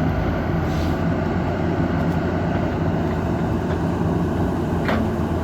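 Excavator's diesel engine running steadily with a low drone. A brief, higher-pitched sound comes near the end.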